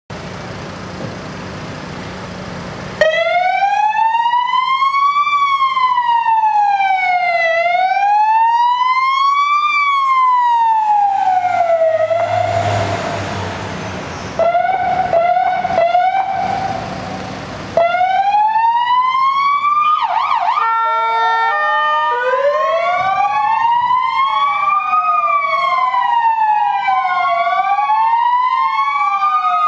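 Ambulance sirens wailing, the pitch sweeping slowly up and down, starting abruptly about three seconds in. Midway the wail sinks under noise for a few seconds, then returns with a brief stepped high-low tone, and near the end two sirens wail together out of step.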